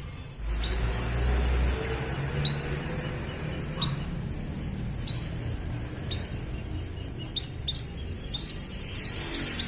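Domestic canary singing: a series of sharp, high, upward-sweeping chirps about a second apart, coming quicker near the end. A low rumble sits under the first couple of seconds.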